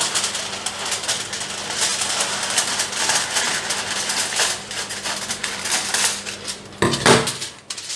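Aluminium kitchen foil crinkling and crackling in a dense run of small clicks as a sheet is pulled from its roll and cut with scissors, with a louder crackle about seven seconds in.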